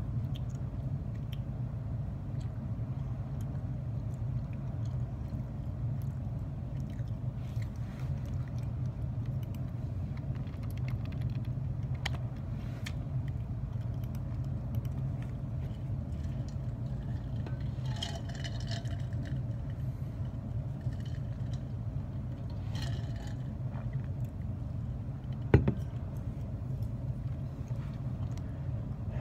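A steady low rumble with faint, scattered small clicks and rustles over it, and one sharper tap near the end.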